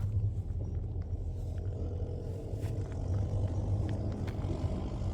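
Diesel engine of farm machinery running steadily with a low, even rumble and a few faint clicks.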